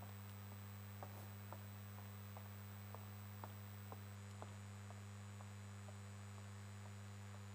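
Quiet pause holding a steady low electrical hum, with faint scattered ticks about twice a second that thin out after the first half.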